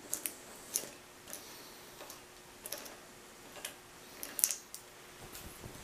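Thread tap being turned by hand with a tap wrench in a hole in a cast-iron bead roller frame: irregular sharp metallic clicks and ticks, the loudest cluster about four and a half seconds in.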